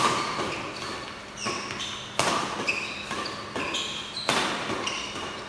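A series of sharp knocks, about five, each hard object strike followed by a brief high ringing.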